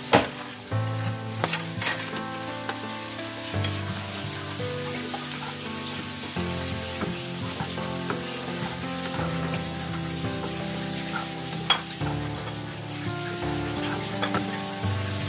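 Sliced sausage and garlic sizzling in hot oil in a frying pan, with a sharp clatter at the start as the pieces are scraped off a cutting board into the pan, then the scrape and clink of stirring. Background music with held notes plays underneath.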